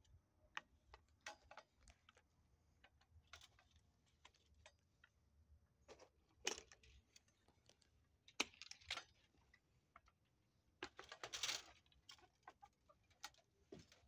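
Faint footsteps and rustling through dry fallen leaves, with scattered small clicks and a few louder rustles about six and a half, eight and a half and eleven seconds in.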